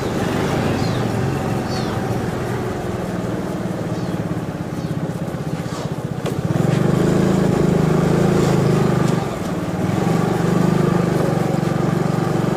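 Small motor scooter engine running while riding, its note growing louder about six and a half seconds in as the throttle opens, easing briefly a little after nine seconds, then picking up again.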